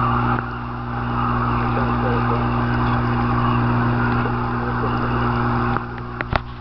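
Steady electrical hum with a hiss over it from the cold-water aquarium tank's running equipment. The level dips about half a second in and again near the end, where a few sharp clicks are heard.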